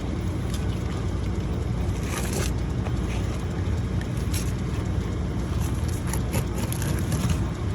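A steady low rumble with scattered short scrapes and crunches on top.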